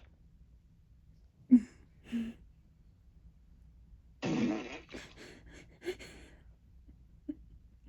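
Recorded fart sound effects played by an Amazon Alexa smart speaker: two short blasts, then a longer, louder one that breaks into a series of sputters.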